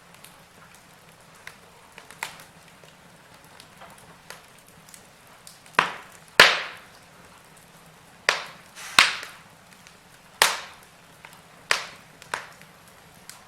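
Log fire crackling: sharp pops and snaps from burning wood over a soft steady hiss. The loudest pops come about six seconds in, with several more through the second half.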